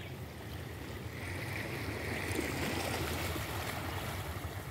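Small waves lapping and washing against shoreline rocks: a steady wash of water that swells a little in the middle.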